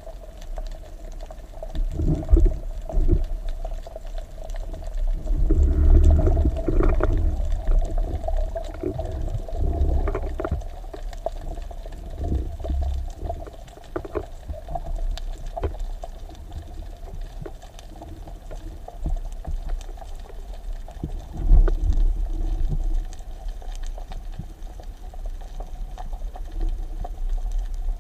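Muffled underwater sound through a camera's waterproof housing: low surges of water moving past, several of them swelling and fading, with scattered faint clicks and a steady hum.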